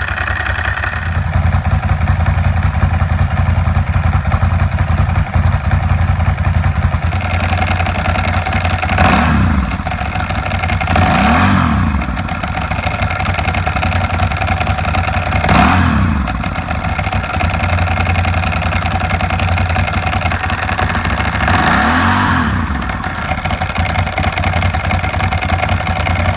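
Ducati Hypermotard 1100's air-cooled L-twin on its stock exhaust, idling with the loud rattle of its dry clutch behind an open clutch cover. Four short throttle blips rise and fall in pitch, about 9, 11, 15 and 22 seconds in.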